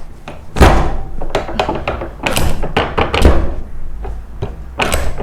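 Chiropractic thrust adjustment to the chest and upper back of a patient lying face up: several dull thuds of the body driven into the treatment table, with small cracking pops of spinal and rib joints between them.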